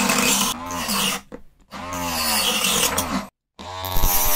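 Small 555 DC motor spinning a mini circular saw blade, whining as it cuts PVC pipe and then plywood; the pitch sags as the blade bites and picks up again as it frees, with a brief break about three seconds in.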